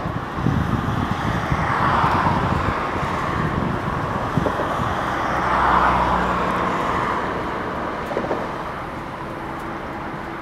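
Road traffic going by: passing vehicles swell and fade about two and six seconds in, then a steadier, quieter traffic noise.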